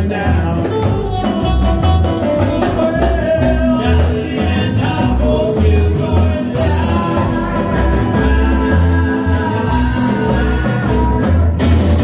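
Live rockabilly band playing: upright bass with a pulsing low end, hollow-body electric guitar and drums, with singing. A long note is held from about six and a half to ten seconds in.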